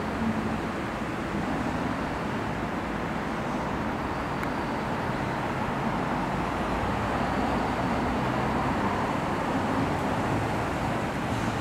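Steady low rumble of a pair of DD51 diesel-hydraulic locomotives approaching slowly in the distance.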